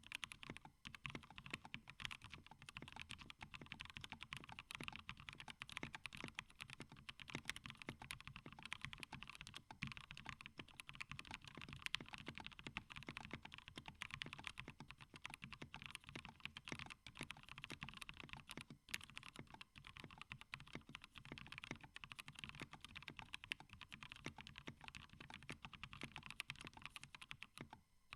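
Continuous fast typing on a plateless 60% mechanical keyboard in a plastic case, with Gateron Yellow linear switches lubed with Krytox 105, lubed screw-in stabilisers and thick PBT keycaps: a dense, irregular run of keystroke clacks with a brief break about two-thirds through.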